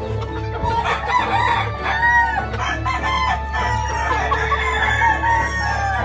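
Gamecock roosters crowing repeatedly and clucking, over light background music.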